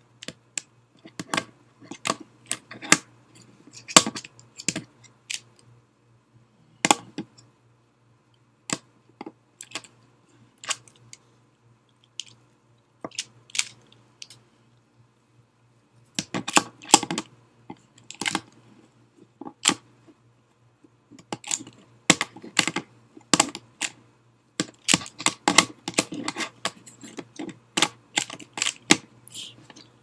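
Plastic DaYan ZhanChi 3x3 speedcube being turned with one hand: quick runs of clicking layer turns broken by short pauses, with the densest clicking in the second half.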